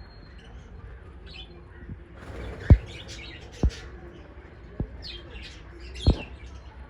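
Budgies and lovebirds chirping together in short, high chirps that start about two seconds in. Four sharp low thumps stand out above the chirping as the loudest sounds.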